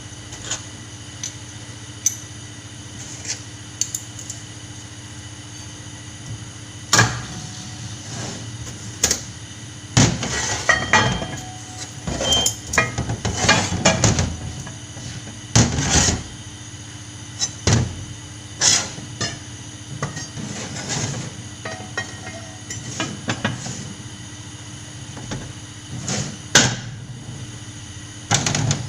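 Irregular metallic clanks, knocks and clinks of tools and metal parts being handled, over a steady machine hum.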